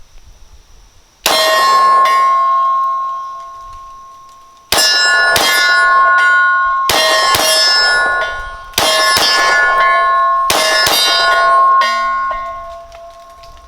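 A Glock 19 Gen 3 9mm pistol fired about nine times, mostly in quick pairs, each hit followed by a long metallic ring from a struck steel target that slowly fades.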